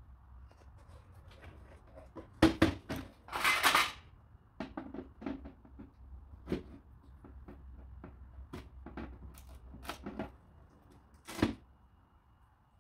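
Plastic and metal parts of a stripped photocopier being handled: scattered clicks and knocks, with a longer rattling burst about three and a half seconds in and another sharp one near the end.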